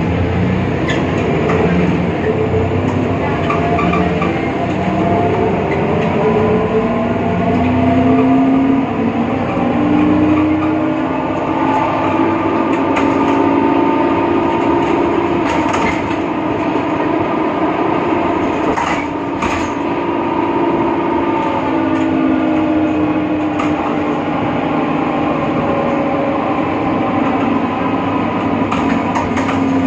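BredaMenariniBus Avancity Plus city bus driving with a loud driveline whine in several tones that rises in pitch as the bus gathers speed, holds, then falls as it slows near the end. It is the strange sound the owner puts down to the bus's differential. A few short knocks sound midway.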